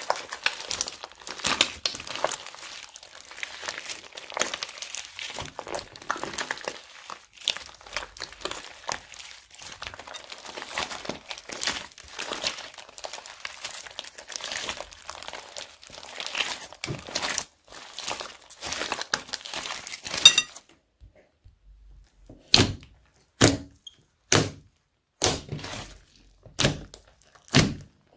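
Slime being squeezed and worked in plastic bags, with dense crinkling and crackling of the plastic. This stops abruptly about two-thirds of the way through. It is followed by about eight separate short thuds or pops, a little over one a second.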